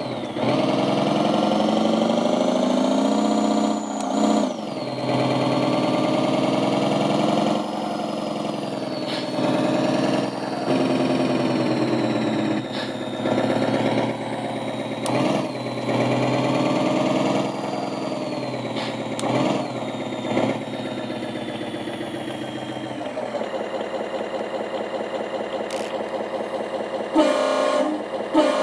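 Simulated truck engine sound from an ESP32 RC sound controller played through small speakers. It revs up and drops in pitch at each gear change of the virtual transmission, then settles to a pulsing idle about 23 seconds in. Near the end a simulated truck horn sounds twice briefly.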